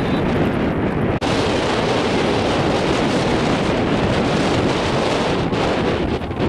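Wind buffeting the microphone: a loud, steady rush with a heavy low rumble, which cuts out for an instant about a second in.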